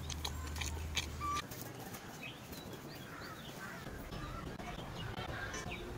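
Small birds chirping in short rising and falling calls, with scattered clicks and the rustle of a woven plastic sack being spread out on the grass. A low steady hum cuts off about a second and a half in.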